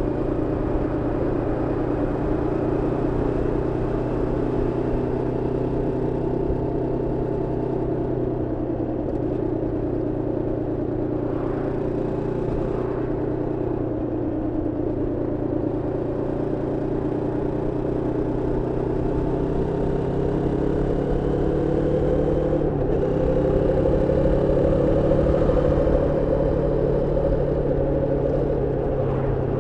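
Moto Morini X-Cape 649's parallel-twin engine running steadily under way at moderate revs, as during break-in. The note climbs gently about twenty seconds in and eases back near the end.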